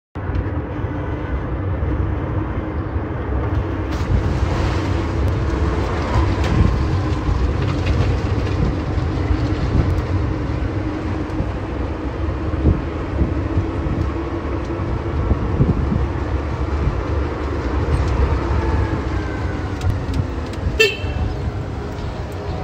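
Riding in an open-sided golf-cart-style shuttle: a steady rumble of wind on the microphone and road noise as the cart drives along. A short high chirp sounds once near the end.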